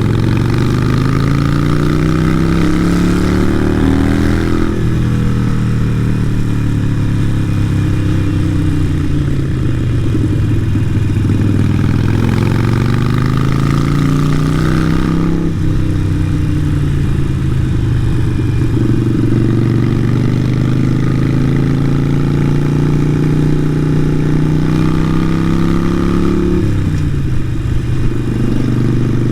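Harley-Davidson Sportster 883 Iron's air-cooled V-twin running through a Vance & Hines aftermarket exhaust while riding. The revs climb and then drop sharply at the gear changes, about 5 seconds in, about 15 seconds in and again near the end.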